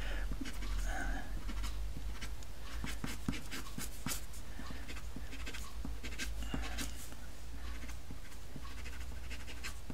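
Rembrandt soft pastel stick scratching across the picture's surface in many short, irregular strokes, laying in dark blue shadows, over a low steady hum.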